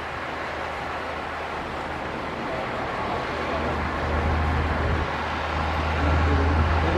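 Heavy diesel earthmoving machinery running with a steady low engine drone, which grows louder about halfway through as the engine takes on more load or comes closer.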